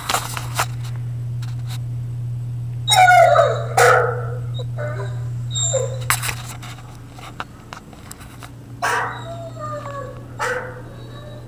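Great Dane crying and barking: a series of pitched, bending whines and barks, the loudest about three seconds in.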